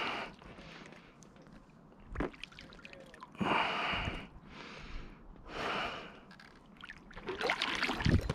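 A person breathing hard: three loud, breathy exhales a couple of seconds apart. Small knocks and rustling build up near the end.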